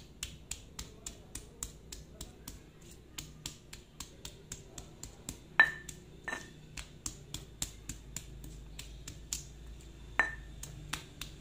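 Stone pestle (ulekan) pounding bird's-eye chilies and garlic in a volcanic-stone mortar (cobek): a steady tapping about three or four strokes a second. A few harder stone-on-stone knocks give a short ring, the loudest about halfway through.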